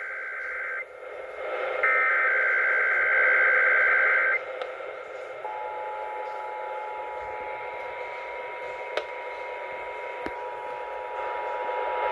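Emergency Alert System test tones heard over AM radio with static hiss: the end of one digital header data burst, then another burst of warbling data tones starting about two seconds in and lasting about two and a half seconds. From about five and a half seconds the steady two-tone EAS attention signal sounds.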